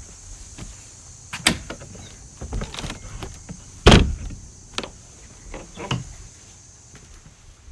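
A handful of separate knocks and thumps, the loudest about four seconds in, over a steady high hiss.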